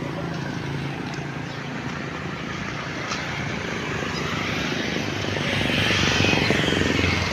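Highway traffic passing, a steady rumble of engines and tyres, with a vehicle passing close and growing louder from about five and a half seconds in.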